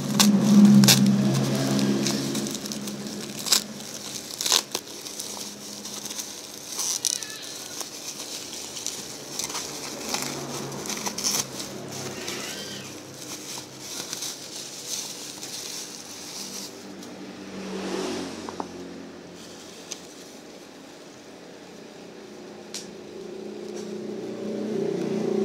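Bubble wrap and plastic wrapping crinkling and crackling as it is handled and pulled off a paperback comic, with sharp clicks now and then. A low hum runs underneath, loudest in the first few seconds and again near the end.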